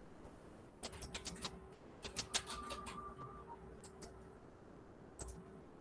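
Computer keyboard typing: short runs of key clicks, in a burst about a second in, another around two seconds in, and a few more near the end.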